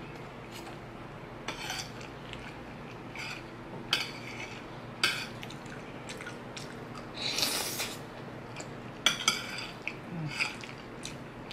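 Metal spoon and fork clinking and scraping against a ceramic plate while scooping macaroni in meat sauce, a scattering of sharp clinks, with wet chewing in between.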